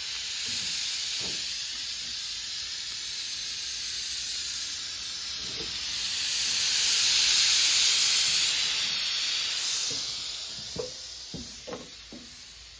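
Pressure cooker venting steam through its weight valve while cooking rice, a steady hiss. The hiss swells about two-thirds of the way in, then fades, with a few faint knocks near the end.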